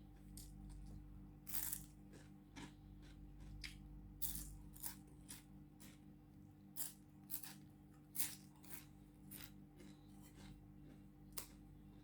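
Close-miked crunching as thin, crispy rugag bread is bitten and chewed, in irregular sharp crunches, some louder than others.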